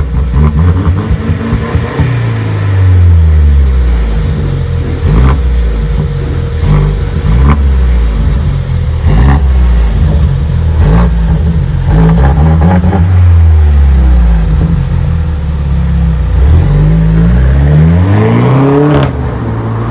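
Mercedes E200's turbocharged four-cylinder engine revved repeatedly through its modified exhaust with AMG tips, each rev rising and falling, the sound still close to stock. Near the end it rises several times in a row.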